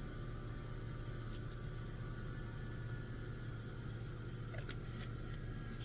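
Small portable air conditioner running with a steady low hum, with a few light clicks in the last second or so.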